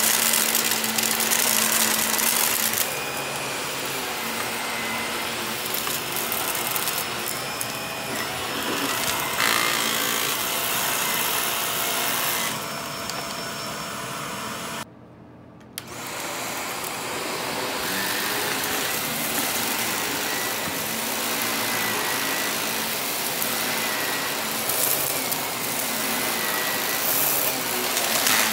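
Upright bagless vacuum cleaner running on carpet, its motor giving a steady whine as it sucks up clumps of dust and lint. The sound cuts out briefly about halfway through, then resumes.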